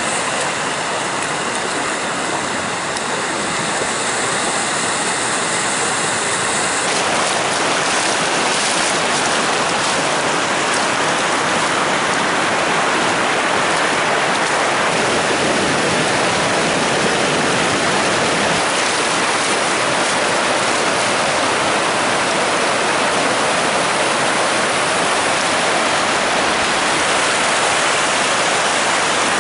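Shallow mountain-stream water rushing in a wide sheet over a long, smooth bedrock slab: a loud, steady, unbroken rush.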